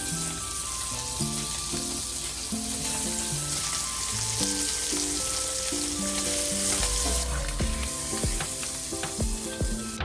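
Trout fillets sizzling as they fry in a pan, a dense steady hiss, with background music playing over it.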